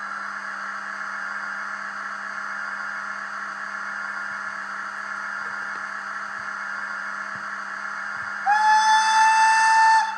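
A sound-equipped H0 model of a DB class 141 electric locomotive plays its standstill operating sound through its small speaker: a steady electric hum with a whine. Near the end the locomotive's whistle sounds on one steady tone for about a second and a half, then stops.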